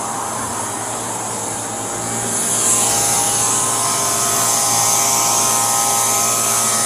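Steady mechanical whirring and hiss, like a motor or fan running, that gets louder and brighter about two seconds in.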